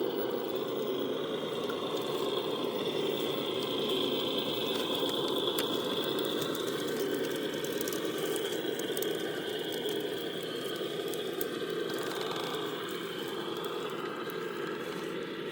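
3D-printed 6x6 RC truck driving: its electric motor and printed gears give a steady rattle under a high whine that drifts up and down in pitch with throttle.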